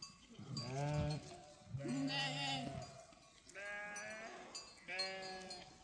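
Sheep bleating: four long bleats of about a second each, one after another, at differing pitches, some with a wavering quaver.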